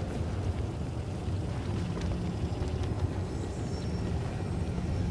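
Steady low engine-like rumble of a sci-fi spaceport ambience, with a few faint clicks and a thin high whine coming in after about three and a half seconds.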